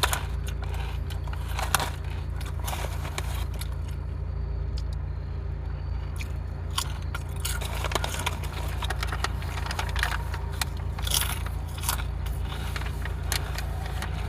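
Potato chip bag crinkling and chips crunching as they are eaten: scattered short crackles and crunches, over a steady low hum.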